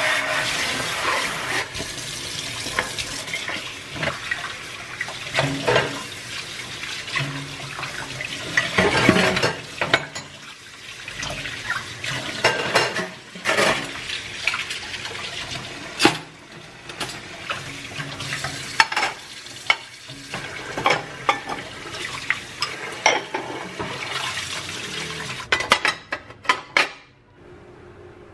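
Tap water running and splashing into a stainless steel sink while dishes, a bowl and cutlery are washed and knocked against the steel and a wire dish rack, with many sharp clatters. The washing sounds stop abruptly near the end.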